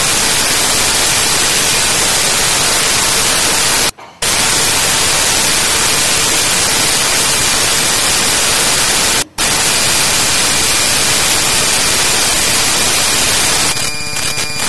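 Loud, steady static hiss like white noise, cutting out abruptly twice for a split second.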